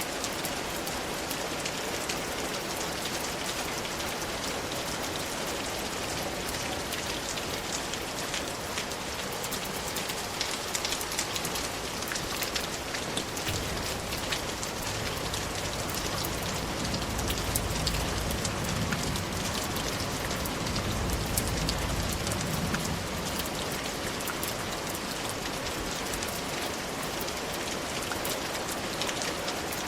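Steady rain, with a dense patter of individual drops hitting a surface. A low rumble swells up from about halfway through and fades again about ten seconds later.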